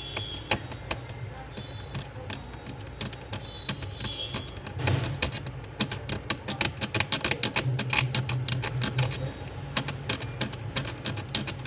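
A thin metal pick scraping and ticking against a small circuit board, a run of quick small clicks that comes thickest about halfway through: the solder mask is being scratched off to bare copper for jumper wires. A steady low hum runs underneath.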